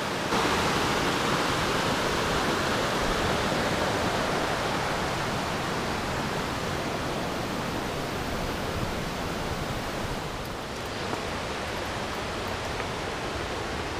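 Fast river current and cascades rushing in a steady, even hiss, easing slightly after the first few seconds.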